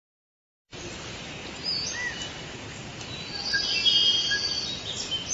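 Outdoor ambience with a steady background hiss and several birds chirping and calling, short rising and falling notes and a brief trill near the middle. It cuts in suddenly under a second in.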